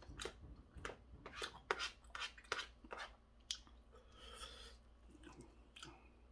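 Close-up chewing of stir-fried pork cartilage: a quick run of sharp crunches as the gristle is bitten through, fading to softer chewing after about three seconds.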